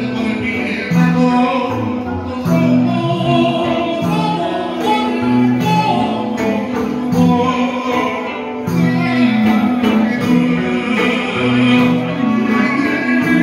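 Live band playing Greek dance music: electric guitar and keyboard with singing.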